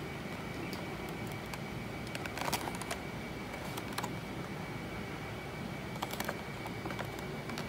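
A few faint scattered clicks and taps of fingers handling a small cardboard model box, over a steady background hiss with a faint high whine.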